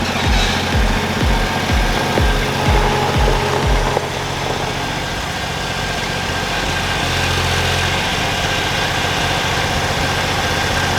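Diesel engine of a Case skid steer running steadily. A low rhythmic thumping, about two beats a second, goes along with it for the first four seconds and then stops.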